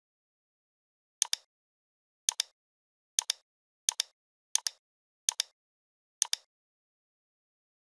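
Computer mouse clicks: seven quick press-and-release double clicks, about one a second, with dead silence between them.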